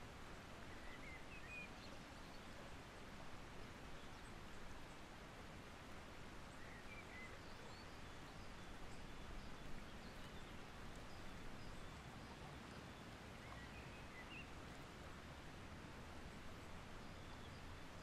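Steady rush of a rocky river flowing, with faint short bird chirps three times over it.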